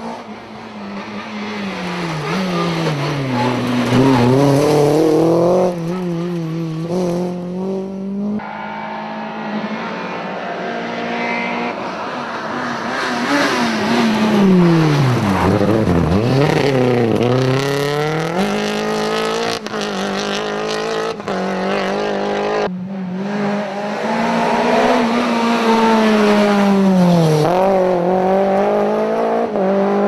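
Small hatchback rally cars, a Renault Clio among them, driven hard on a tarmac stage one after another: each engine revs up and drops back through gear changes as the car comes close and passes, the pitch sweeping down as it goes by. The sound cuts abruptly from one car to the next twice.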